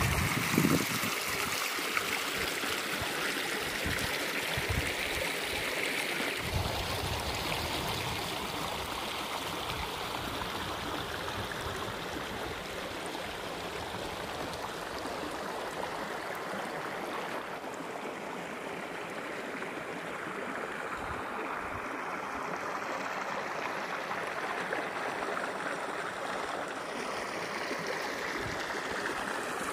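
Shallow stream running and trickling over rocks and pebbles, a steady rushing of water, slightly louder in the first few seconds, with a few low thumps near the start.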